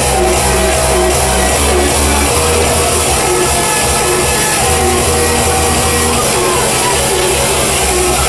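Loud hardstyle dance music from a DJ set, running continuously with a heavy bass line and sustained synth notes.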